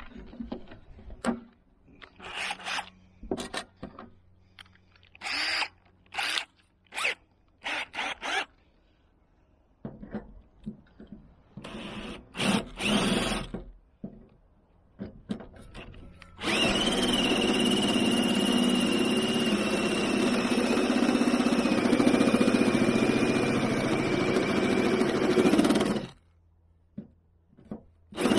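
A scatter of clicks and knocks from handling the drill and its chuck, then a cordless drill runs for about ten seconds with a steady whine that dips slightly as the bit bores through the van's metal roof. It stops, then starts again just before the end.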